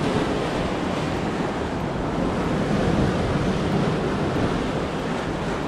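Rough sea surging and breaking against a rocky shore, a steady wash of surf, with wind buffeting the microphone.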